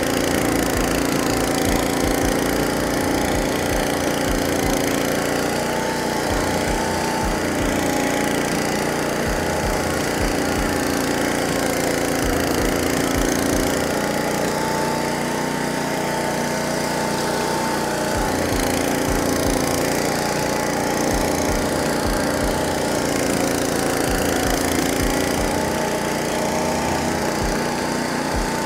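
Honda petrol engine of a Caiman Rolo 70H flail mower running steadily under load as it cuts tall grass. Its note sags slightly and recovers every few seconds, over irregular low thumps.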